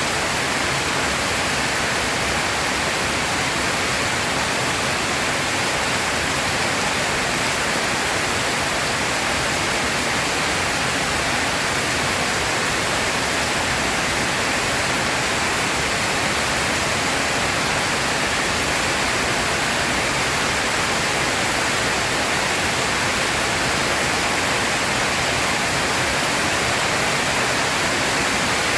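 Heavy rain falling steadily, an even dense hiss with no thunder or other sudden sounds.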